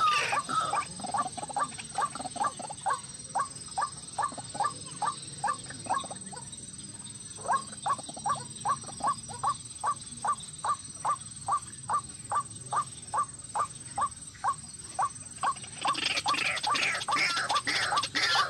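White-breasted waterhen calling: a long series of short, even notes, about four a second, broken by a pause of about a second partway through, then loud, harsh croaking calls near the end.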